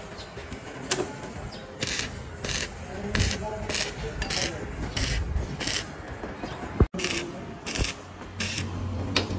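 Stick (arc) welding on thin square steel tubing: the arc crackles in short bursts, struck and broken about every two-thirds of a second.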